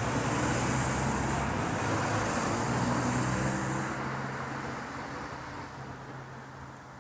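A motor vehicle driving past, its engine hum and tyre noise slowly fading as it moves away.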